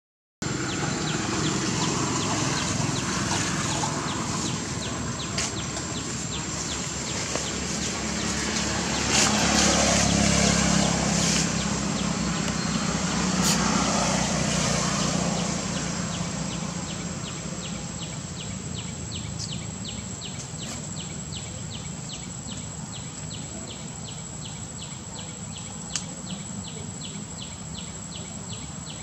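Outdoor ambience with a steady high-pitched whine. A low rumble swells and fades in the middle, and in the second half a rapid regular ticking sets in, about three ticks a second.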